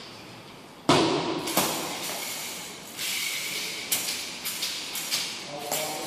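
Thuds and sharp knocks from a tai chi spear routine, echoing in a large hall: one loud thud about a second in, then several lighter knocks spread through the rest.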